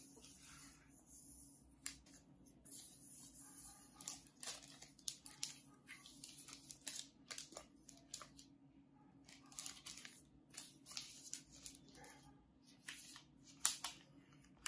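Faint rustling, scraping and crinkling of the MacBook Air's cardboard box and paper wrap as hands lift the packaging and the wrapped laptop, with a few light taps near the end.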